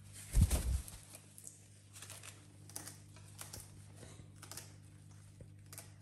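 Parrots tearing and nibbling at fresh corn-stalk leaves: scattered dry crackling and rustling clicks, with one dull thump about half a second in that is the loudest sound.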